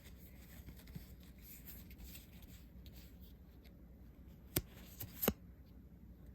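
Faint rustle and slide of trading cards being handled and sorted, with two sharp clicks near the end, less than a second apart.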